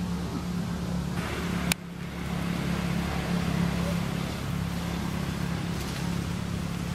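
A steady low engine hum over a broad hiss, with one sharp click a little under two seconds in.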